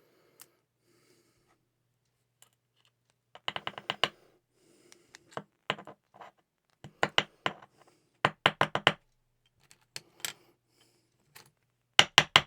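Sharp little metal clicks and taps in quick bursts of several strokes, from handling and tapping a gutted small pin-tumbler lock to work its pins and springs out of the bible.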